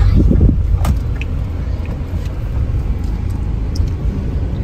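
Steady low rumble of a car moving slowly, heard from inside the cabin, with a single sharp click about a second in.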